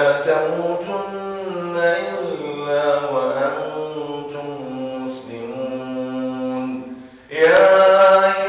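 A man's voice chanting a melodic Arabic recitation into a microphone, in long drawn-out phrases. He takes a short breath about seven seconds in, then comes back in at his loudest.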